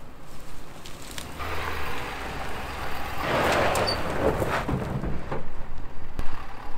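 Ford F-250 Tremor pickup with its 6.7-litre high-output diesel driving off-road in two-wheel drive: a steady low engine rumble under a rush of tyre and ground noise that builds from about a second and a half in and is loudest around three to four seconds, with a few sharp knocks.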